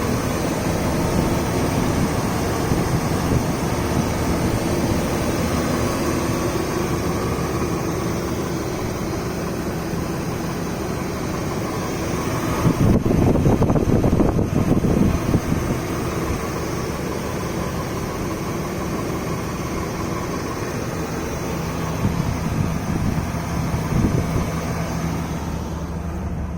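BMW 540i's M62 4.4-litre V8 idling steadily, with the rattle that the owner puts down to the timing chain. The engine grows briefly louder about 13 seconds in, then settles back.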